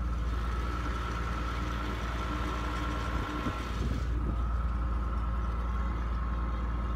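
International 856 tractor engine running steadily, heard from the driver's seat, with a steady whine on top.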